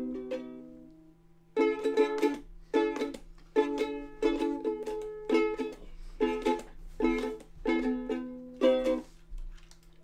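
Ukulele strummed in chords. One chord rings out and fades, then after a short pause comes a rhythmic run of strums, which stops about nine seconds in.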